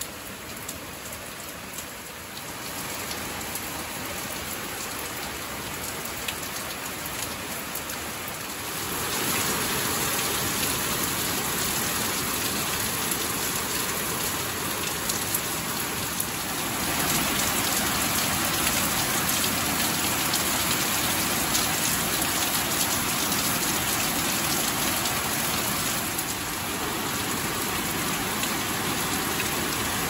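Heavy rain pouring onto broad tree and garden leaves: a steady hiss of drops pattering on foliage. It grows louder in steps about a third and about halfway through, and eases a little near the end.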